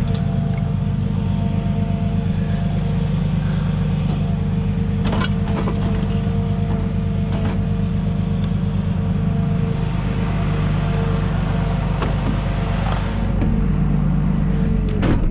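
Ram tow truck's engine idling steadily close by, with a steady higher hum over the low rumble and a few light clicks and clanks, one near the end.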